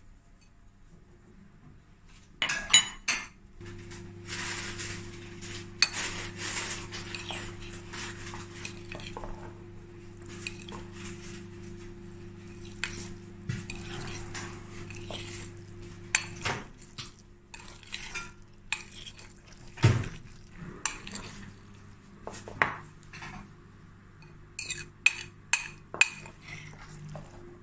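Metal fork clinking and scraping against a glass mixing bowl while stirring tuna and mayonnaise. The sharp, irregular clicks and scrapes start about two seconds in, over a steady low hum for much of the time.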